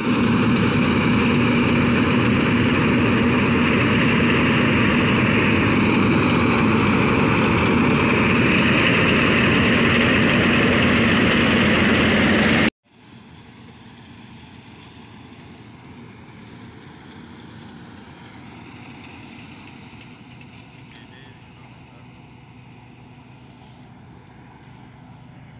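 Combine harvester running while harvesting paddy: a loud, steady machine drone with a constant hum. About halfway through it cuts off suddenly to a much fainter, steady engine rumble.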